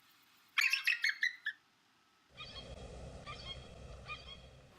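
Recorded bird calls in two parts: a quick burst of high chirping calls about half a second in, then, after a brief silence, a second recording with a steady hiss behind it and repeated short calls.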